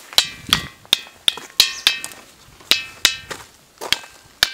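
A ringing boulder struck again and again with a small hand-held stone: about ten sharp strikes at an uneven pace, each giving a short metallic, bell-like 'tan' ring rather than the dull knock of ordinary rock.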